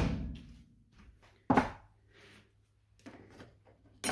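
A few dull knocks and thuds, such as things being handled and set down on a work surface. The loudest is at the very start and rings briefly, another comes about a second and a half in, and a third near the end.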